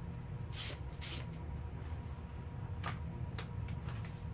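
Small handling noises of parts and tools on a dirt bike's front end: two short scraping hisses about a second in, then a few light clicks, over a steady low hum.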